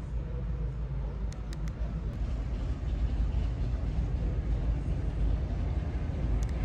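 Outdoor ambience with a steady low rumble, a few faint clicks about a second and a half in, and a slight rise in level from about three seconds.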